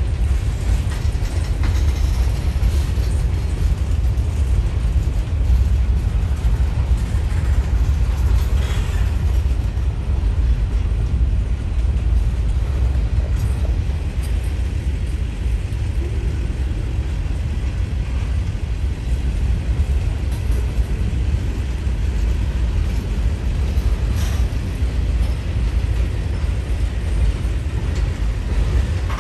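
Freight train cars rolling past close by: a steady, loud rumble of steel wheels on the rails. A brief sharper noise cuts through about nine seconds in and again some fifteen seconds later.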